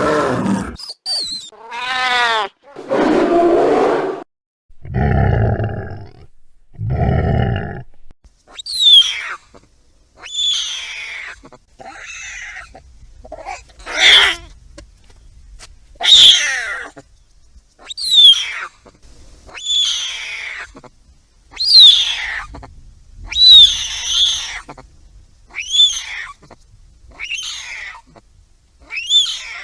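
Cougar (mountain lion) calling: a series of short, high-pitched calls, each falling in pitch, repeated about every two seconds, beginning about eight seconds in. Before that come other sounds, including a falling sweep and two low thuds.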